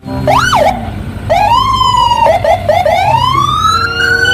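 Police patrol car siren sounding, its pitch sweeping up and down in a quick whoop and then longer rising and falling wails, with a short steady blare near the end.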